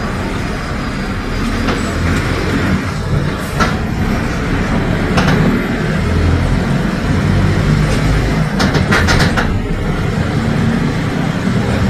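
Mercedes-Benz OF 1721 city bus (Caio Apache Vip IV body) under way, its front-mounted four-cylinder diesel running with a steady low drone that swells a little about six seconds in. Body panels rattle, with a few sharp clicks and a brief burst of rattling about nine seconds in.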